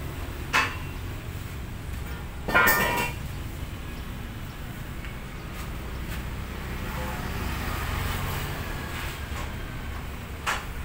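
Steel parts clanking as a crane attachment is fitted onto a forklift's steel frame: a short metal knock about half a second in, a louder ringing clank at about two and a half seconds, and another knock near the end, over a steady low traffic rumble.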